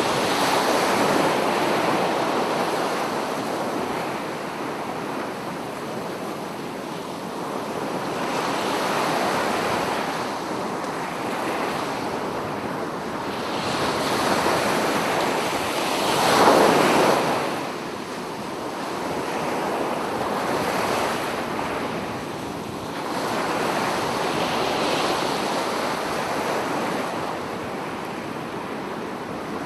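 Sea waves breaking and washing up a sandy beach, the surf swelling and fading every few seconds, with the loudest break about halfway through.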